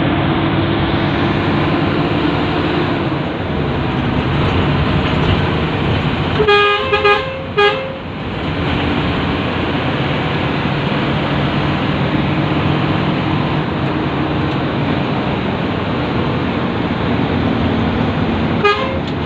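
Intercity bus running with steady engine and road noise. About six and a half seconds in, a bus horn sounds in three quick blasts, and it gives one more short blast near the end.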